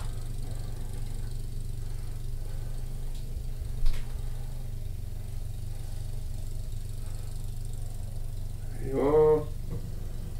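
Snow blower engine running steadily as a low drone, with a single sharp click about four seconds in.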